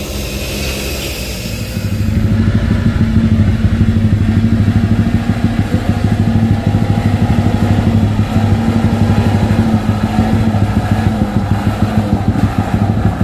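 Truck's diesel engine running steadily with a low, fast pulse, louder from about two seconds in.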